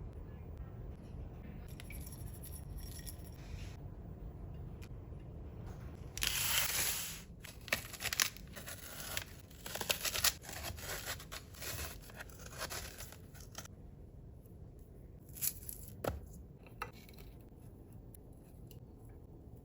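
Frozen yogurt bark being broken into pieces: a loud paper-like rustle about six seconds in, then a run of sharp cracks and snaps over several seconds, and a few single snaps later.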